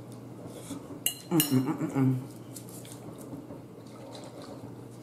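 A metal spoon clinks sharply against a plate about a second in, followed by a brief murmur from the eater with her mouth full. Quiet eating sounds follow.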